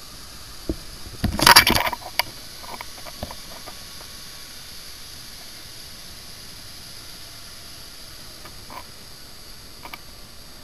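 Steady hiss of a dive boat under way across the lagoon, with a loud scraping rustle about a second and a half in and a few sharp knocks around it.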